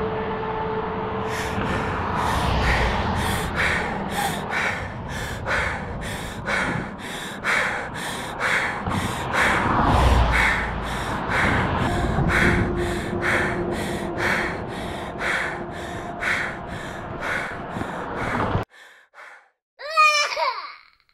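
Rapid sobbing, gasping breaths about twice a second, over a steady low rumble. The breaths cut off abruptly near the end, and a short warbling, sliding sound follows.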